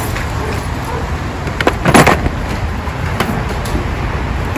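Steady low background rumble with a few short knocks, the loudest about two seconds in.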